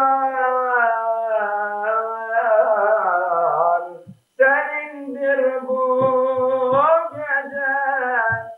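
A man singing an unaccompanied devotional hymn in long, ornamented held notes that waver and slide in pitch. He breaks off for a breath about four seconds in, then resumes.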